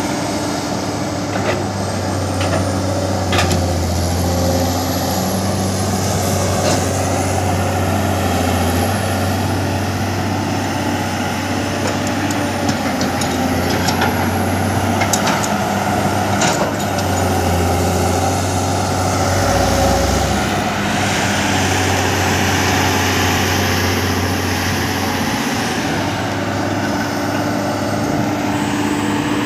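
Heavy diesel construction machinery running steadily, with a few sharp knocks and clanks.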